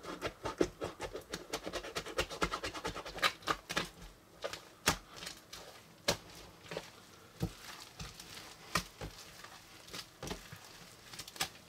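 Floam beads in a large blob of mixed slime and putty crackling and popping as hands knead and squeeze it, a dense run of rapid little clicks that thins out after about four seconds into sparser crackles.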